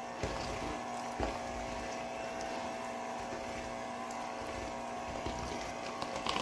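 Electric hand mixer running steadily with a constant motor hum, its beaters working cream cheese and powdered sugar in a stainless steel bowl. There are two light knocks in the first second or so.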